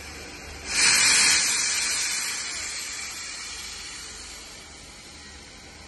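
Steam locomotive blowing off steam: a loud hiss bursts out suddenly under a second in, then fades away over a few seconds to a steadier hiss. The steam is jetting low down at the front, typical of the cylinder drain cocks being opened.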